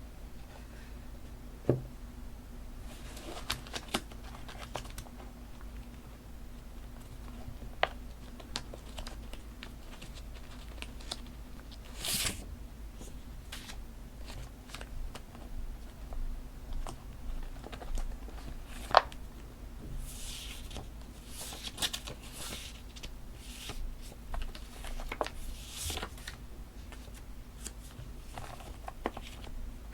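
Paper and stationery being handled for journaling: papers rustling and crinkling, with bits being torn and scattered light taps and a few sharp clicks, over a faint steady low hum.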